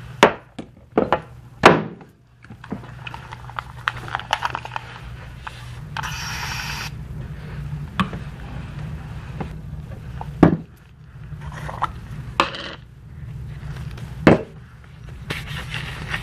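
Plastic spray bottles and product containers handled on a barber's counter: a series of sharp knocks and clacks as they are picked up and set down, with a short hiss of a spray bottle about six seconds in. A low steady hum runs underneath.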